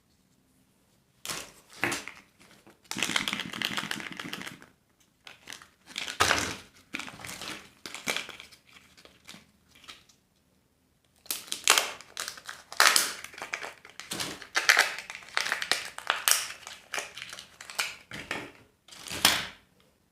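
Crinkly candy wrapper being handled and torn open by hand, in irregular bursts of crackling with a short pause about halfway through.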